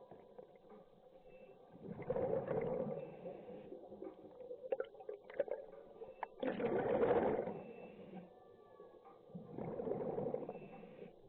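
A scuba diver breathing out through a regulator underwater: a bubbling rush about a second long, three times at intervals of three to four seconds, with faint clicks in between.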